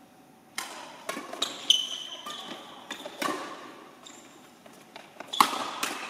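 Doubles badminton rally: a string of sharp racket hits on the shuttlecock and footfalls on the hall floor, starting about half a second in, with brief shoe squeaks and echo from the hall. The hits come in bursts, with a louder cluster near the end.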